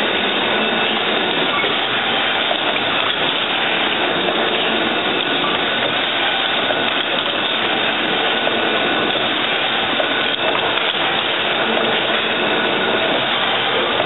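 Automatic hypodermic needle assembly machine running: a steady, dense mechanical noise that holds without a break.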